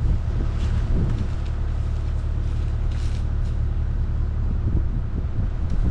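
Strong wind buffeting the microphone, a steady low rumble with a few faint rustles.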